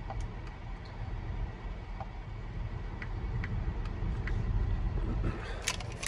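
Diesel truck engine idling steadily as a low rumble inside the cab, with a few faint ticks from typing on a tablet's touchscreen.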